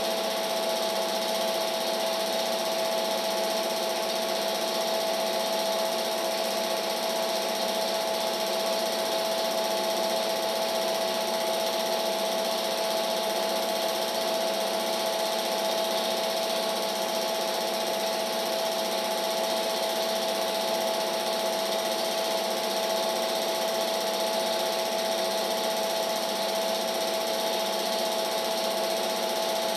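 Film projector running: a steady mechanical whir with a constant high hum over an even hiss, unchanging throughout.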